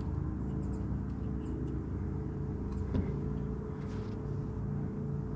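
Steady mechanical hum with several even tones underneath, and a single light metallic click about three seconds in as a dial indicator is set against a lathe chuck.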